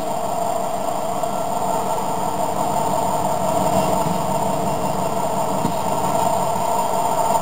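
Sound-equipped HO-scale model of a GE diesel locomotive running along the track, its onboard sound decoder playing a steady diesel engine sound through a small speaker.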